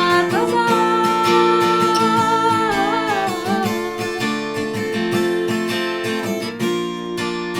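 Acoustic guitar strumming chords as a song ends. Over it a wordless sung note is held with vibrato and slides down about three seconds in.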